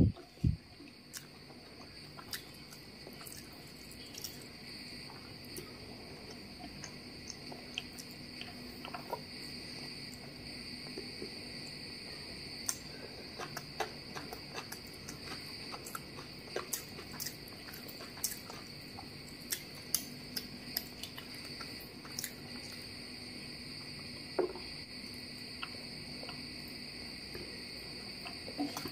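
Close-up hand-eating sounds: fingers working biryani rice on a plate, chewing and lip smacks, heard as scattered short clicks and smacks, with a louder smack right at the start. Under them runs a steady high-pitched background drone.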